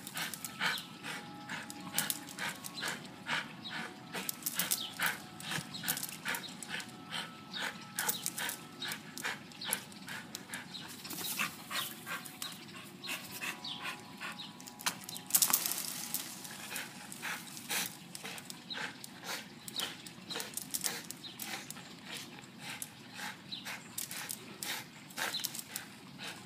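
Dog hanging by its jaws from a rope swing in a tree, making a dense run of short sharp sounds, about two to three a second, as it grips and shakes the rope.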